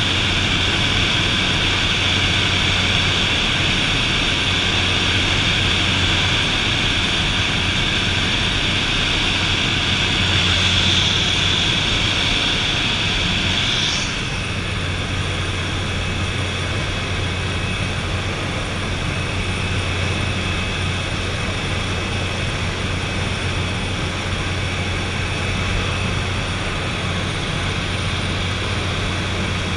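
De Havilland DHC-3 Otter's turboprop engine and propeller droning steadily in cruise, heard inside the cabin, with a low hum under a higher hiss. About halfway through, the hiss drops away and the drone turns slightly quieter.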